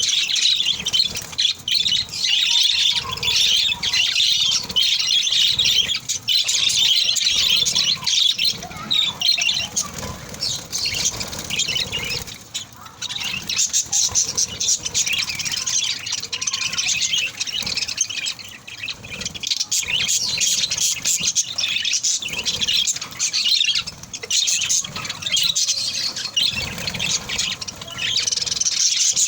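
A group of small parrots chattering and squawking continuously, many high calls overlapping, with a short lull about halfway through.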